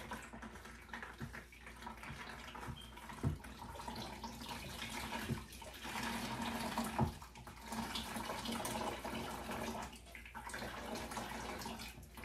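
Blended pineapple and cucumber juice trickling and splashing into a plastic container as the pulp is squeezed through a cheesecloth, with a few light knocks.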